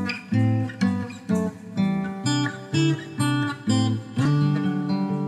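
Acoustic guitar playing an intro, chords plucked and strummed in a regular rhythm with sharp attacks about twice a second, steadier from about four seconds in.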